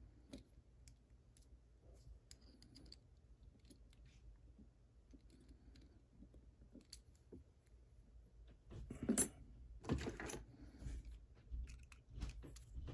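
Small metal clicks and scrapes of a tool prying at the retaining clip on the back of a Mul-T-Lock lock cylinder: faint scattered ticks at first, then louder clicks and handling noise in the last few seconds as the clip comes loose.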